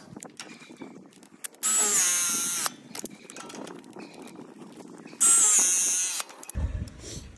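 Battery-powered press tool with MegaPress jaws running two press cycles, crimping MegaPress fittings onto black steel gas pipe. Each cycle is a motor whine of about a second whose pitch sags as the jaws close, with small handling clicks between them.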